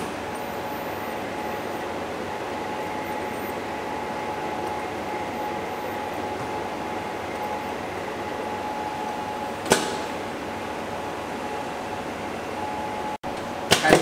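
Ultrasonic cutting-and-welding machine running while fabric is fed under its rotary wheel: a steady hum and hiss with a faint steady tone. A sharp click comes about ten seconds in, and a couple more clicks come at the end.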